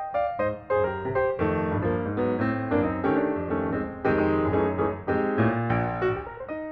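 Background piano music, a steady stream of struck notes and chords.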